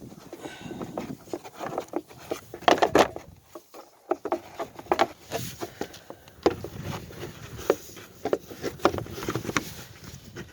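Hands refitting parts in a car engine bay: irregular clicks, taps and knocks of parts being handled and set back in place.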